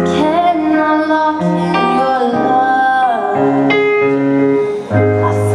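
Pop song passage: keyboard chords over changing bass notes, with a melody line that slides between held notes.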